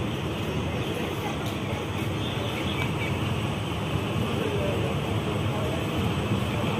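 Ganga Satluj Express passenger train running along the track, heard from on board: a steady rumble and rush of wheels and moving air with no let-up.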